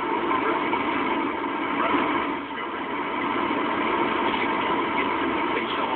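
Space Shuttle Discovery's solid rocket boosters and three main engines firing during ascent just after clearing the launch tower: a steady, unbroken rushing noise.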